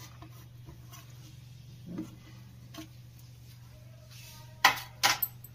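Kitchen utensils knocking against a bowl as ingredients go into mashed vegetables: a few soft clicks, then two sharp knocks about half a second apart near the end, over a faint steady low hum.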